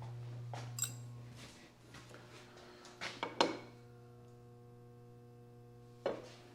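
A few light metallic clicks and clinks from hand-adjusting a milling machine setup, over a faint low hum that fades out about a second and a half in.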